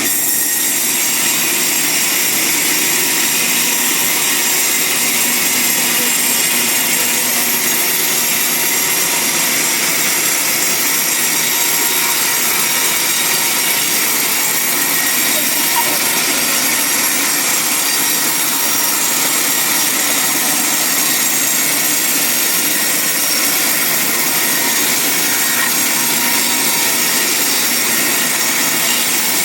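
Band sawmill blade cutting steadily through a large log, a continuous even hiss without a break.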